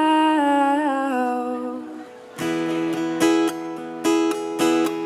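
Live acoustic song. A singer's held note bends in pitch and fades out about two seconds in. Then strummed acoustic guitar chords start up in a steady rhythm.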